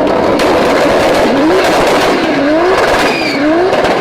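Toyota Supra engine revving hard with antilag, its pitch climbing and dropping back about once a second over a dense, continuous crackle of exhaust pops.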